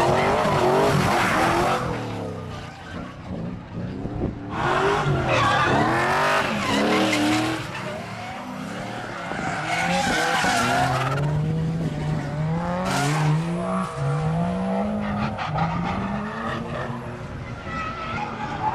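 Holden Commodore drift car's LS6 V8 revving hard through a drift, its note climbing and dropping over and over. The tyres squeal in several loud spells as the rear wheels spin in the slide.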